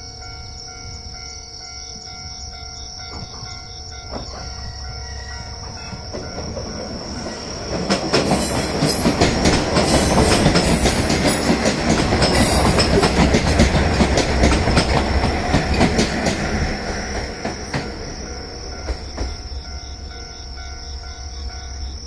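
Diesel railcar passing over a level crossing. The rumble builds from about six seconds in and is loudest for about eight seconds, with rapid wheel clacks over the rail joints, then fades away. A steady high insect trill runs underneath.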